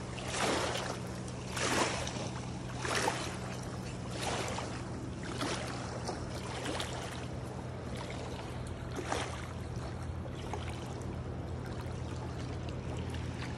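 Small waves lapping against the rocky lakeshore, a soft swish about every second and a bit, dying away after about ten seconds, over a steady low hum.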